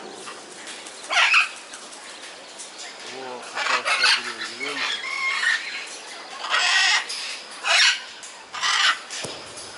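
Blue-and-gold macaws squawking: a string of loud, harsh screeches, about one every one to two seconds.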